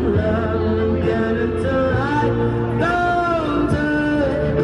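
A live band plays while a man sings a melody through a microphone. Drums and low bass notes accompany him.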